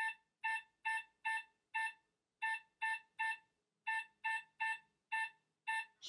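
Hornbill smart deadbolt's touch keypad beeping once for each key pressed as a passcode is entered: about thirteen short, identical electronic beeps in an uneven rhythm, roughly two a second.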